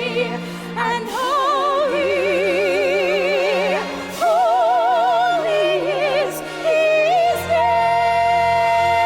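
A solo voice sings long, held notes with wide vibrato over orchestral accompaniment with sustained low bass notes; a new long note is held from near the end.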